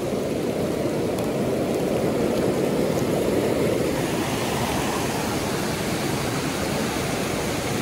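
River rapids rushing steadily: an even, unbroken water noise.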